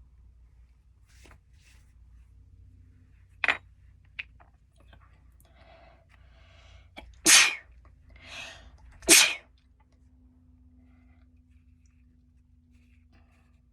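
A person sneezing: a short sharp sneeze about three and a half seconds in, a breathy build-up, then two loud sneezes about two seconds apart with a quieter burst of breath between them.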